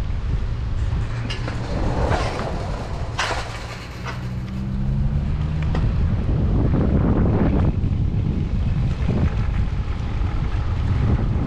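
Wind buffeting the microphone over a steady low rumble, with louder gusts now and then and a brief humming tone a few seconds in.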